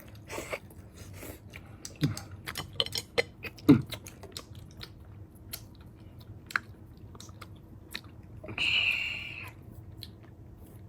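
People eating at a table: chewing, with scattered light clicks of chopsticks against bowls and plates. Near the end there is a louder rush of noise lasting about a second.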